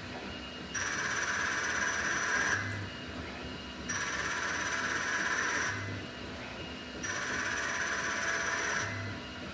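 Tormach CNC lathe turning an aluminium bar in repeated passes: three cuts of about two seconds each, with a hissing cutting noise and a steady high whine, separated by quieter pauses of about a second as the tool pulls back, each cut ending with a short low hum.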